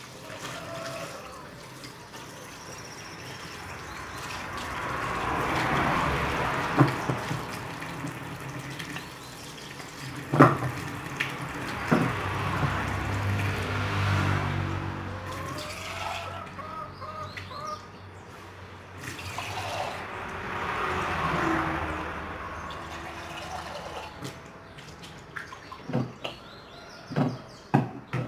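Water running and splashing in a sink as something is washed by hand, swelling twice, with several sharp knocks of objects against the sink.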